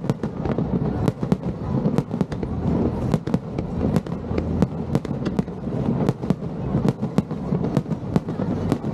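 Aerial fireworks shells bursting in a rapid barrage. Bangs and cracks come several times a second at uneven spacing over a continuous rumble.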